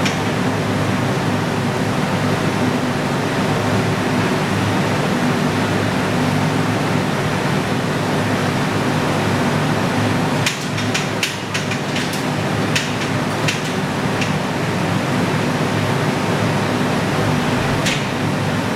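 Large floor fan running with a steady rushing hum. A cluster of sharp clicks and knocks comes about ten to fourteen seconds in, and one more near the end.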